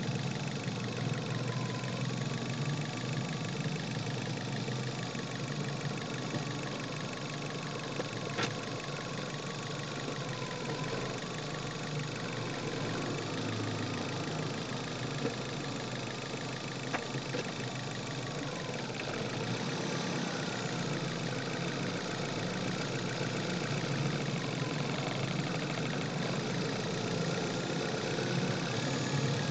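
Chevrolet car engine running steadily, heard through a microphone in the engine bay, with a faint wavering whine and a few sharp clicks; it grows a little louder near the end.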